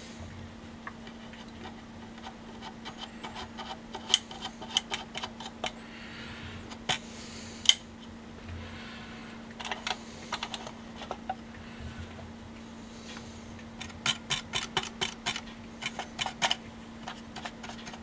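Small brush tapping and scraping over the teeth of a metal gear on a BSR UA15SS record changer as grease is worked onto them: clusters of quick, light clicks with short pauses between.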